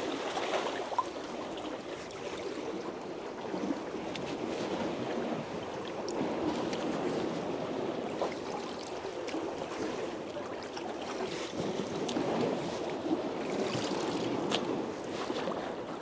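Water sloshing and splashing in a plastic bucket as split mackerel are rinsed by hand, with small scattered knocks.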